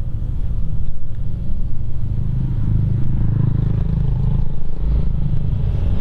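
Motor scooter engine running with a steady low rumble, growing fuller about two seconds in as the bike moves off.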